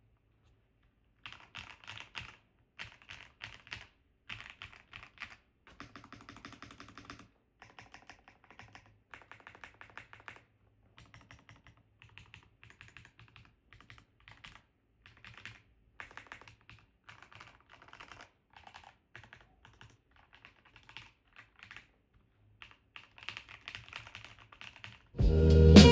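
Typing on an Epomaker Cypher 96 gasket-mounted mechanical keyboard with doubleshot PBT keycaps: quick runs of keystrokes broken by short pauses. Music comes in loudly just before the end.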